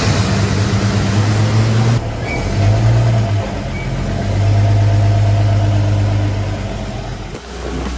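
1954 Chevrolet pickup's straight-six engine running at idle just after its first start following repairs, its speed dipping and rising a little. The sound cuts off sharply near the end.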